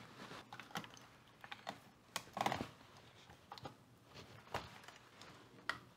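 Plastic case of a Silvertone 1207 pocket transistor radio being handled and pressed together during reassembly: irregular light clicks and taps, with a brief rub about two and a half seconds in.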